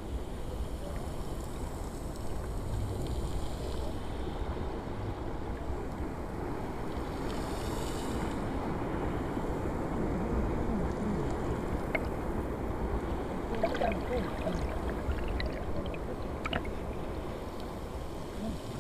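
Seawater sloshing and churning around a camera held at and below the surface as a person swims, with a few short clicks in the second half.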